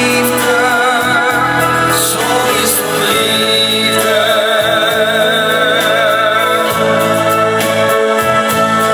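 A young male singer sings live into a handheld microphone over instrumental accompaniment, holding a long note with vibrato in the middle of the passage.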